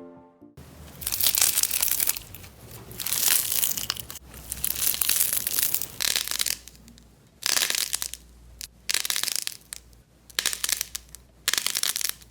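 Slime being pressed and squished by hand in repeated strokes, each lasting about a second, with short pauses between.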